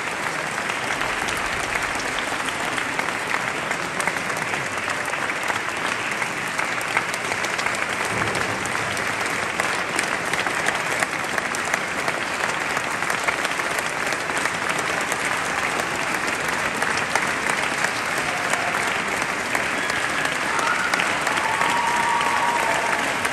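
Audience applauding steadily in a large cathedral, a dense even patter of many hands clapping. A few faint short pitched sounds rise above the clapping near the end.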